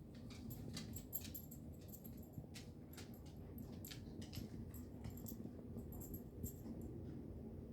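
An Aussiedoodle's nails clicking irregularly on the floor as it moves about, over the faint steady rush of the house's air vent intaking.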